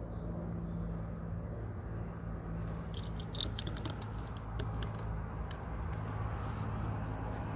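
Light metallic clicks and ticks, mostly in a cluster from about three to five and a half seconds in, as a metal spline roller presses flat spline and screen mesh into an aluminum screen-door frame channel. A steady low hum runs underneath.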